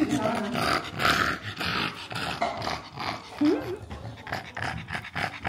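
Toy poodle puppy making small growling and whimpering noises.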